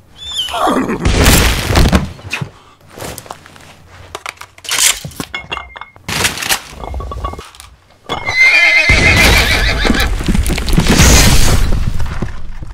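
A horse whinnying: a falling neigh about a second in and a longer, wavering one in the last few seconds, with a run of sharp clicks and knocks between them.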